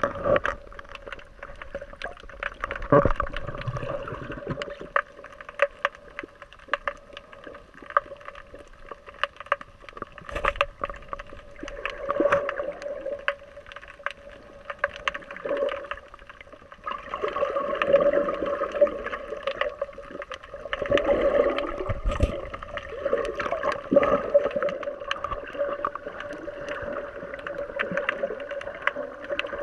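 Muffled underwater sound picked up by a submerged camera: water swirling and gurgling, with many scattered clicks, a steady hum underneath, and louder swells of water movement now and then.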